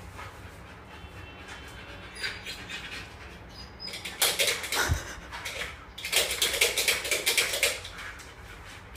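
A husky's claws scrabbling rapidly against a wall as it paws at a light switch. There are two bursts of scratching a few seconds in, with a dull thump between them.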